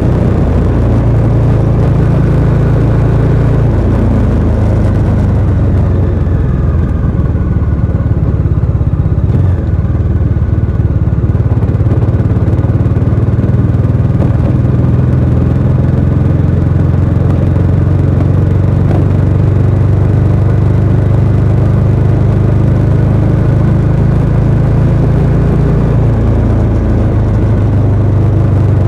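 Bajaj Dominar 400 UG's single-cylinder engine through its stock exhaust, running at a fairly steady engine speed while the motorcycle is ridden, with only small rises and falls in pitch.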